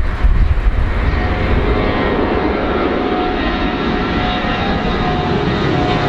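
Four-engined Airbus A340 jetliner climbing low overhead with its landing gear down, its turbofans running at high power. A deep rumble gives way about a second in to a broader roar with a steady high whine on top.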